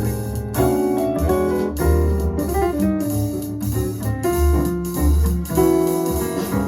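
Jazz piano trio recording played back through Klipsch R-40PM powered speakers: piano over a double bass line, with regular cymbal strokes from the drums.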